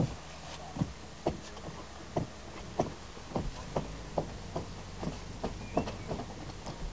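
Footsteps on grass, about two steps a second with slightly uneven spacing, picked up by a handheld camera as the person filming walks, with a sharp click at the very start.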